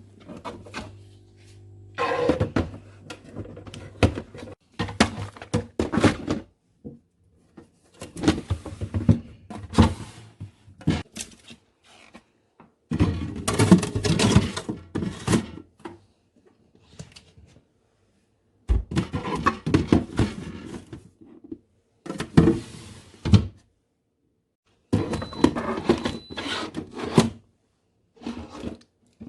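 Plastic food containers being knocked and set into freezer drawers and shelves: repeated clunks, clicks and rattles with drawers and the door being handled, in several separate bursts with stretches of silence between them.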